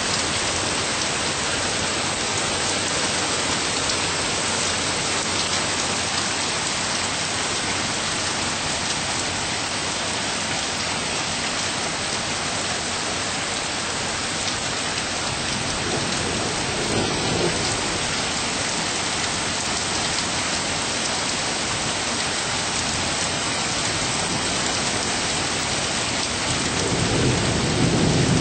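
Steady rain falling, with a low rumble of thunder a little past halfway and a louder thunder rumble building near the end.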